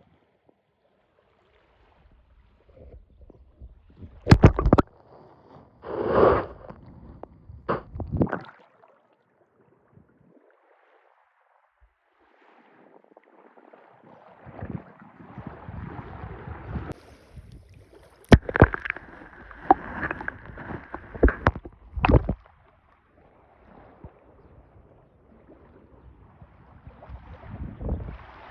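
Sea water sloshing and splashing in irregular surges, with several sharp slaps and quiet gaps between the surges.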